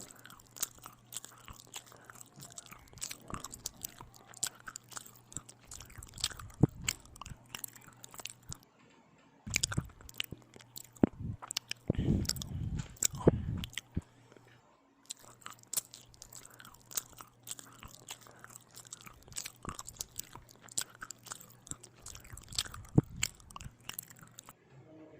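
Close-miked eating of bread with ham and tomato: bites and chewing with many small crunchy, crackly clicks. A louder stretch of a few seconds comes about halfway through.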